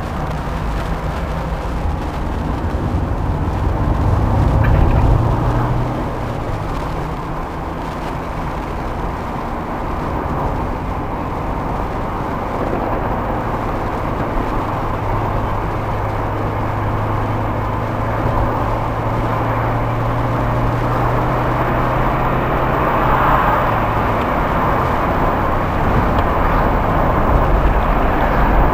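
A 1994 Fiat Elba's engine and tyre noise heard from inside the cabin while driving at steady speed: a continuous low drone with an engine hum that swells briefly about five seconds in.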